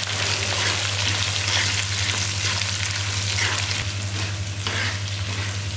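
Dried red chillies and sliced small onions sizzling in hot groundnut oil in a clay pot, stirred with a ladle. A steady low hum runs underneath.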